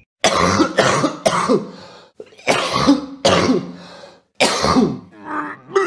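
A person coughing repeatedly: about six hard, rasping coughs in short groups, then two weaker ones near the end.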